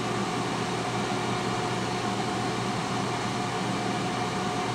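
T-fal air fryer running mid-cook: a steady whir from its fan, with a faint constant tone over it.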